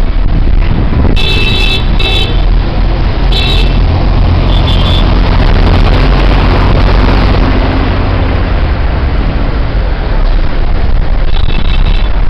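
A bus driving through deep floodwater: its engine runs steadily under a loud rushing wash of water thrown up by the wheels. Short vehicle horn blasts sound four times in the first five seconds and once more near the end.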